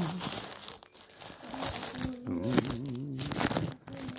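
Plastic packaging crinkling and rustling in irregular crackles as a small drone is pulled out of its wrapping by hand.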